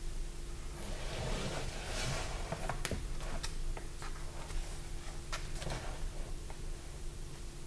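Sketchbook pages being turned by hand: paper rustling and flapping, loudest about one to three seconds in, with a few small clicks and knocks as the pages settle, over a faint steady hum.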